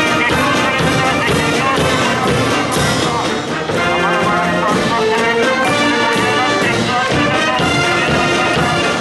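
A marching wind band playing live: flutes, saxophones, trumpets, trombones and sousaphones in full ensemble, over bass drum and snare drums.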